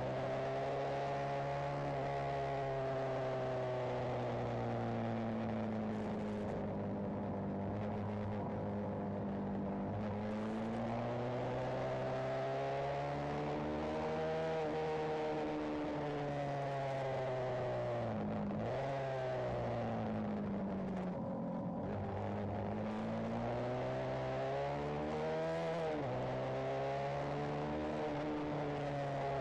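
Benelli TNT 125's single-cylinder four-stroke engine and exhaust running under way, heard from on board the bike. The engine note slowly falls and climbs again with the throttle, with a few sudden drops in pitch, the last one near the end.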